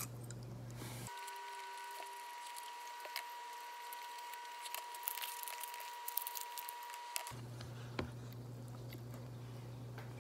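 Quiet handling sounds: a scatter of small clicks and crinkles as a small plastic seasoning packet for cup noodles is torn open and handled. A low steady hum runs underneath. In the middle, for several seconds, the hum gives way to a steady high tone.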